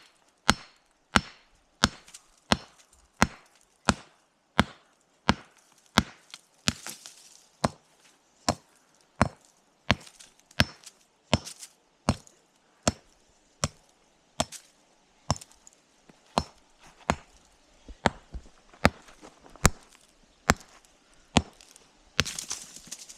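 Hammer striking sandstone rock again and again, breaking pieces off, in steady sharp blows about three every two seconds.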